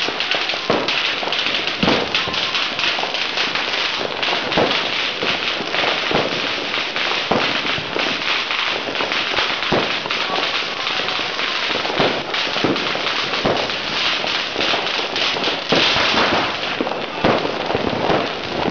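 Firecrackers and fireworks going off nonstop: a dense, unbroken crackle with louder bangs about every second.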